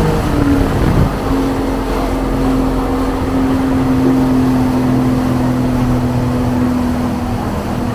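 Boat engine running steadily with a continuous hum; its pitch shifts and settles about a second in.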